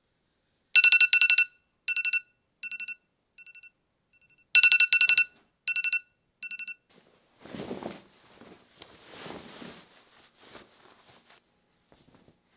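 Smartphone alarm going off: bursts of rapid high beeps, each burst quieter than the one before, with the sequence playing twice. It is followed about seven seconds in by softer rustling.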